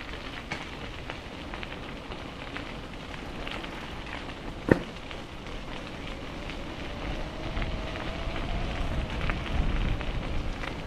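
Riding a bicycle with an action camera: steady crackling rattle and wind on the microphone, with one sharp click about halfway through. The wind rumble grows louder in the last few seconds.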